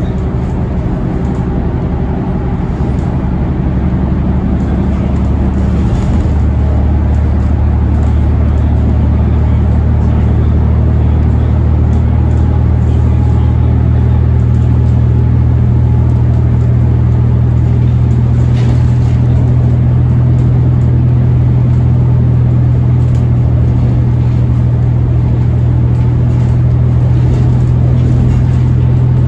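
Cabin sound aboard a New Flyer XDE60 hybrid articulated bus: its Cummins ISL9 six-cylinder diesel runs under way with a steady low drone. About six seconds in the drone shifts and grows a little louder, then holds steady as the bus rolls on.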